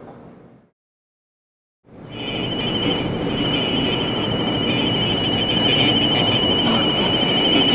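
Radio static: a hiss with a steady, slightly wavering high whistle. It starts about two seconds in, after a moment of silence.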